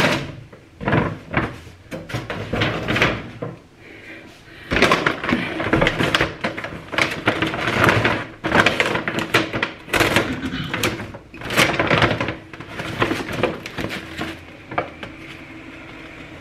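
Groceries being unpacked by hand: packaging and bags rustling and crinkling, with irregular knocks and thumps as items are picked up and set down.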